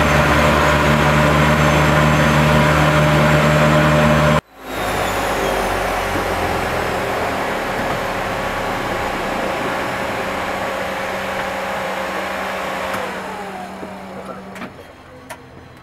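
Seaplane propeller engines running loud and steady in the cabin, cutting off abruptly about four seconds in. A quieter steady engine hum follows, and from about thirteen seconds its pitch falls and the sound fades as the engines wind down. A few sharp clicks come near the end.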